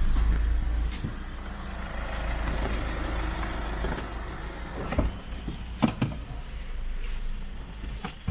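A car running, with a low rumble that is heaviest in the first second and then settles. A few sharp knocks come through, the loudest about six seconds in.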